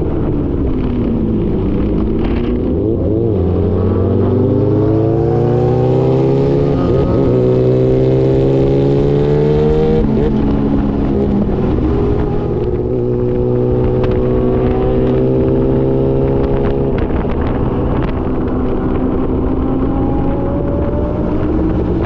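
Yamaha R6 inline-four through an SC-Project titanium exhaust. The revs climb slowly for several seconds, drop sharply about ten seconds in, as in an upshift, and hold fairly steady. They drop again shortly before the last few seconds and rise near the end.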